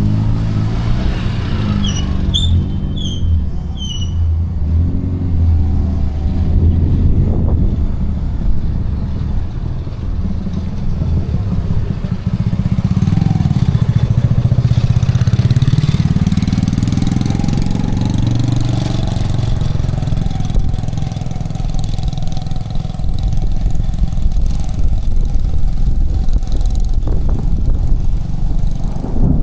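Motor vehicle engine running close by, its pitch rising and falling as it revs in the middle. Four short high chirps sound about two to four seconds in.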